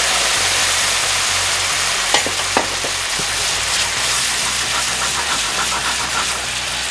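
White wine sizzling and hissing in a hot buttered frying pan of sheepshead fillets, capers and lemon slices: the deglazing that starts the piccata sauce reducing. The sizzle eases off slightly, with two sharp clicks about two seconds in.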